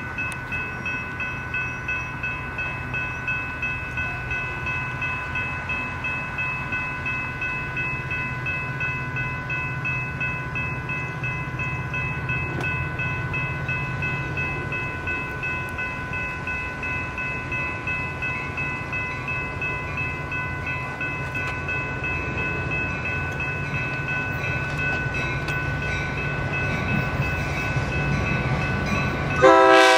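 Railroad grade-crossing warning bell ringing steadily with the gates down, an even ding about two to three times a second. Under it, the low rumble of an approaching train grows. A train horn sounds right at the end.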